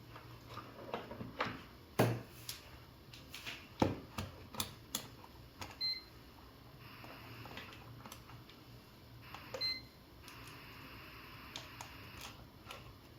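Scattered clicks and knocks of a multimeter and test leads being handled, with two short high beeps about six and nine and a half seconds in, as the multimeter's dial is switched to diode mode.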